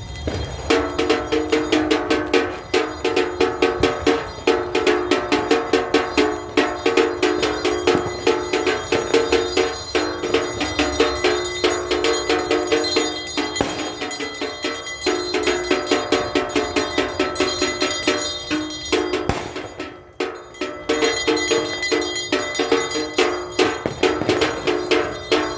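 Rapid, continuous percussive banging with a steady ringing pitch, many strokes a second, briefly dropping away about twenty seconds in.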